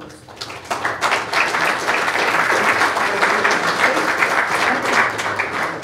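Audience applauding, the clapping building up over the first second and starting to die away near the end.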